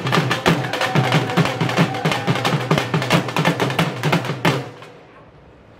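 Music with fast, steady drumming, the drum strikes dense and driving, which cuts off suddenly about four and a half seconds in, leaving only low background noise.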